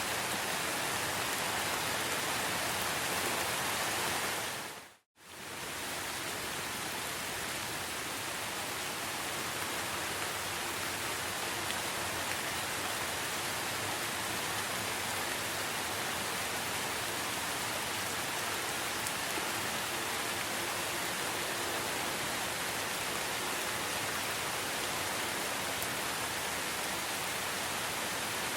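Steady rain falling, an even hiss of drops. About five seconds in it fades out to silence for a moment and then fades back in.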